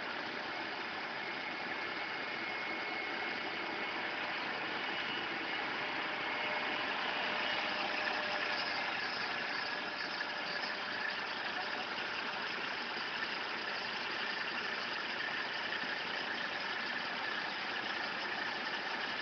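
An engine running steadily, without pauses or changes in speed.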